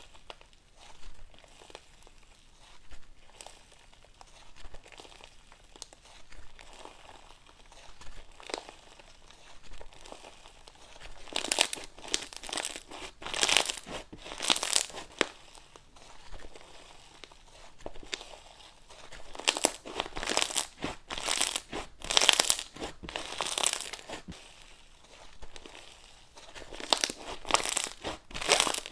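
Slime being squeezed and kneaded by hand, giving off crackling and popping noises. It comes in bouts of a few seconds, faint for the first ten seconds, then louder in three spells.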